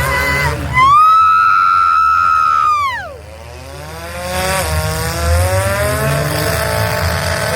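Demolition derby car engine revving hard: the pitch jumps up about a second in, holds high, drops sharply about three seconds in, then climbs slowly again toward the end.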